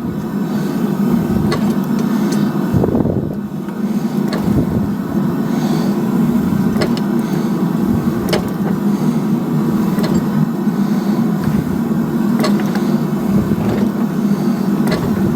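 Blacksmith's forge running with a steady low roar, with scattered sharp metal clicks and knocks over it.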